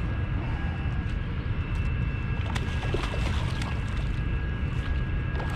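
A hooked redfish splashing and thrashing at the water's surface beside a kayak, in short scattered splashes from about two and a half seconds in, over a steady low rumble.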